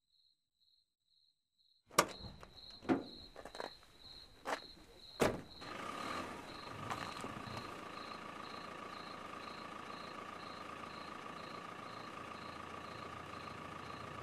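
Crickets chirping in a steady pulse, then five sharp clunks and knocks inside a car, about two to five seconds in. From about six seconds in, a car engine runs with a steady hum.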